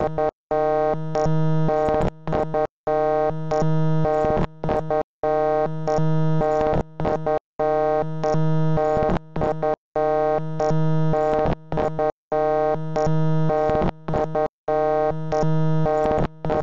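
A loud, buzzing synthesized electronic tone held on one pitch, repeated as a loop of about two seconds with short stutters and a brief hard cut-out between repeats.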